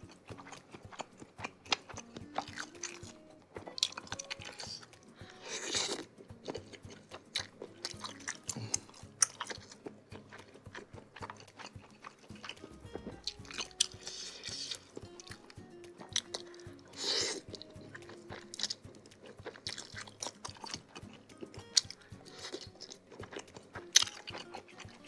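Close-miked mouth sounds of a person eating seblak: chewing and biting with many small crunches and wet clicks. Twice, about six and seventeen seconds in, comes a louder, longer hissing sound.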